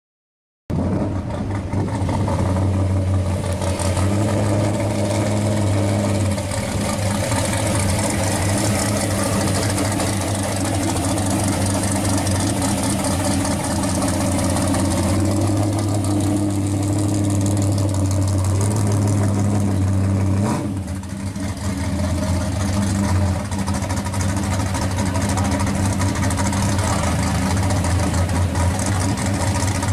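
The V8 engine of a 1967 Chevrolet Camaro SS running at idle and low speed as the car creeps past and drives off, a steady rumble. The sound starts just under a second in and dips briefly about two-thirds of the way through.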